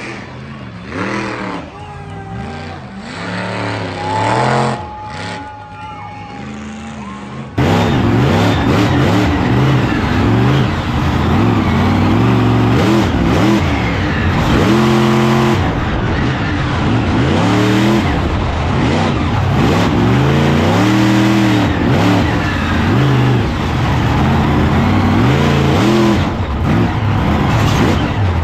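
Monster truck engine revving hard, its pitch climbing and dropping again and again as the throttle is worked through a run. It is fainter at first; about seven seconds in it cuts suddenly to a much louder, close-up sound.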